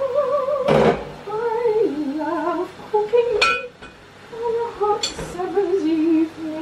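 A woman humming a meandering tune, with kitchenware clinking sharply three times: about a second in, about halfway, and about five seconds in.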